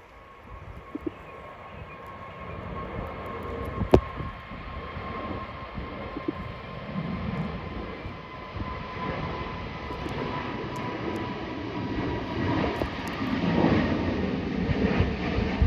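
Airbus A220's Pratt & Whitney PW1500G geared turbofan engines at takeoff, a steady whine whose pitch slides slowly down while the engine noise grows louder toward the end. A single sharp click about four seconds in.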